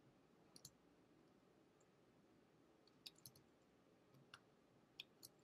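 Near silence broken by about half a dozen faint, scattered clicks of a computer's input controls.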